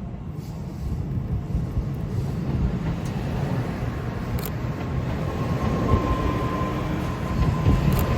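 Shinkansen train running on the track, a low rumble growing steadily louder, with a faint steady whine in the second half.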